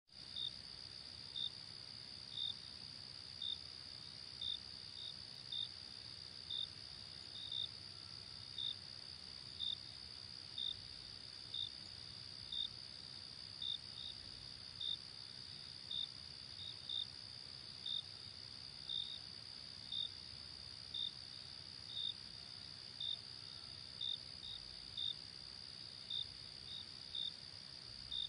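Crickets in a field: a steady high-pitched trill with separate louder chirps repeating about once a second over it.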